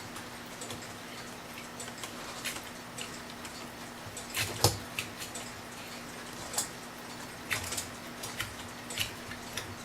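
Irregular small metallic clicks and taps of hands and tools working on an antique clock movement, over a faint steady hum.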